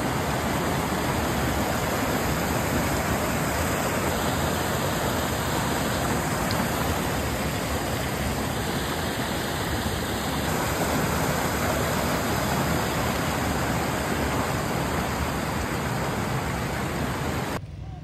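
Water rushing steadily down a small waterfall on a stream, a dense even noise close to the microphone. It cuts off suddenly near the end.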